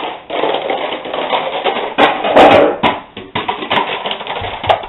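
A long line of plastic DVD and video-game cases toppling like dominoes, each case clacking onto the next in a fast, irregular run of clicks and knocks.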